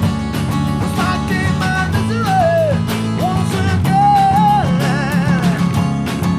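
A band playing: electric bass guitar, drum kit with cymbals and acoustic guitar, with a lead melody line above that bends and wavers in pitch.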